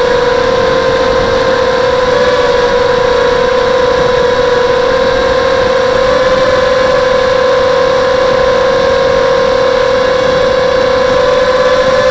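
Brushless motors and 5-inch propellers of an FPV racing quadcopter (SunnySky X2204 2300KV motors, HQ 5x3 props) running at steady throttle, a loud, even whine heard from the onboard camera, its pitch rising slightly near the end.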